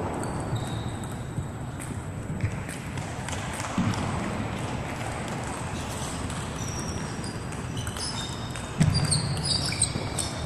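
Table tennis rally: the celluloid ball clicking off the paddles and table at irregular intervals over the murmur of a large hall. Short high squeaks come near the end, and the background noise grows louder about nine seconds in.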